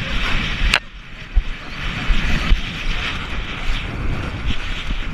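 Wind buffeting the microphone of a camera carried at a gallop, a steady rushing with irregular low thumps from the ride beneath it. A sharp click comes just under a second in, after which the noise briefly drops quieter.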